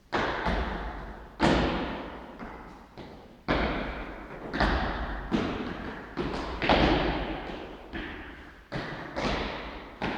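A series of sharp thuds, about fifteen in ten seconds at uneven spacing, each dying away with an echo as in a large hard-walled room.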